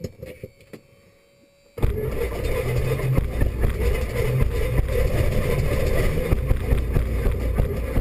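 Robin DR400 light aircraft's piston engine and propeller heard from inside the cockpit: a few faint clicks, then about two seconds in the engine sound comes in abruptly and runs steadily.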